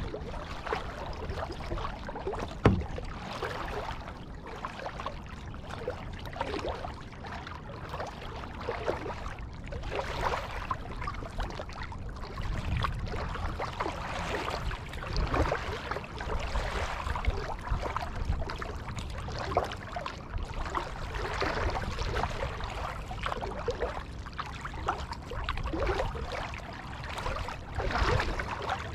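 Kayak being paddled: paddle blades dipping and splashing in the water at irregular intervals, with water running along the hull under a low rumble. A single sharp knock about two and a half seconds in.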